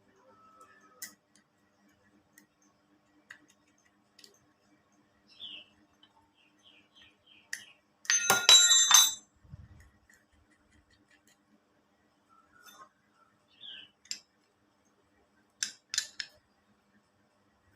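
Scattered light clicks and clinks of small metal parts and tools being handled, with one loud ringing metallic clatter about eight seconds in.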